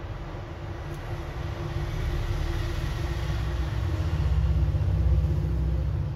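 A low rumble that swells, is loudest about four to five seconds in, then fades again, over a faint steady hum.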